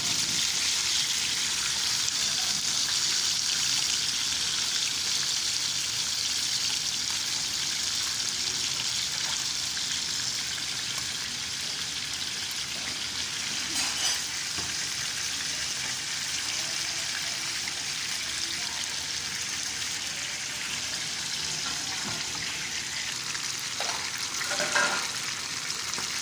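Fish pieces frying in hot oil, a steady sizzle, with a few short knocks partway through and near the end.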